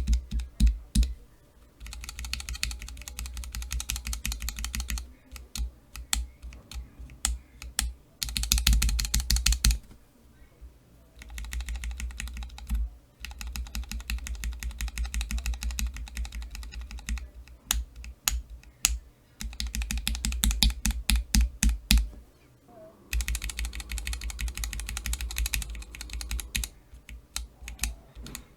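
Cherry MX Black linear mechanical key switches in keychain testers being pressed rapidly, in several runs of fast clacking separated by short pauses. The runs vary in tone, some deep and thuddy, others thin and high.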